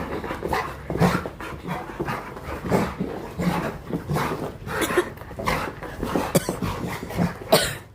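Dogs fighting: panting and whimpering in irregular, uneven bursts, with a loud, sharp burst near the end.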